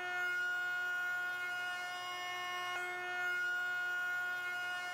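Trim router mounted under a router table, running at speed with a steady high-pitched whine as a plywood strip is fed along its fence.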